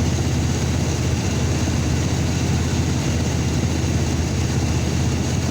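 2002 Chevrolet S10's six-cylinder engine running steadily at idle. The truck has a P0300 misfire code, with cylinder 1 logging misfires.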